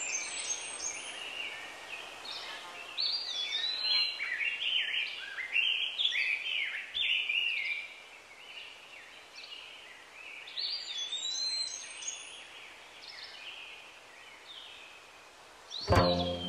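Several songbirds singing and chirping in woodland, short rising and falling calls overlapping over a faint hiss, busiest in the first half and sparser later. Plucked string music comes in loudly about a second before the end.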